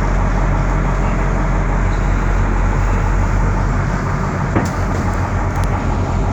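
Fishing boat's engine running steadily with a low drone, under a rush of wind and water noise; a single knock about four and a half seconds in.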